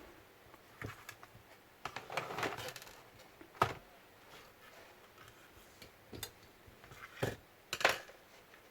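Scattered clicks and small knocks of laptop parts and tools being handled on a workbench. A short rustle comes about two seconds in, and the sharpest clicks fall near the middle and near the end.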